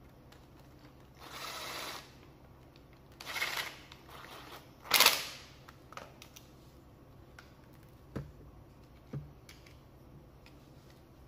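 Cordless 12 V impact driver backing out screws in three short bursts, the third and loudest with rapid hammering. Two light knocks follow as parts are handled.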